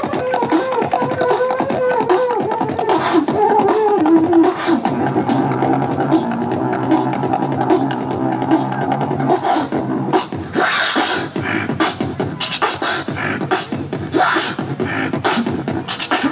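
Beatboxer performing with his voice: a sliding, hummed melody over a clicking beat, turning into a held low bass hum, then from about ten seconds in sharp hissing snare sounds and clicks keeping a steady rhythm.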